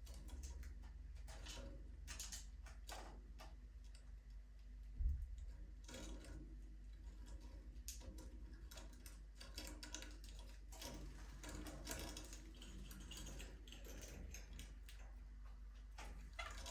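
Budgerigars moving about an aviary: quick, irregular light clicks and taps of beaks and feet on perches and cage wire. There is a steady low hum underneath and a single thump about five seconds in.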